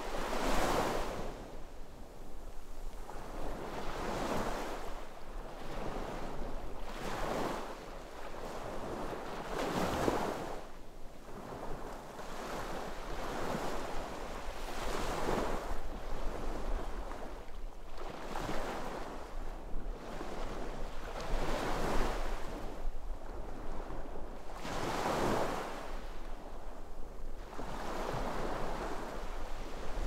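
Sea waves breaking and washing onto the shore, the surf swelling and falling away every two to three seconds.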